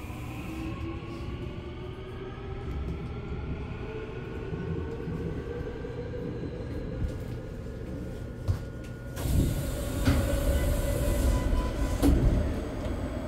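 Seoul Line 1 electric subway train slowing to a stop, its motors whining and shifting in pitch over a steady rumble. About nine seconds in, the doors slide open onto the platform and the sound grows louder and fuller, with a couple of sharp knocks.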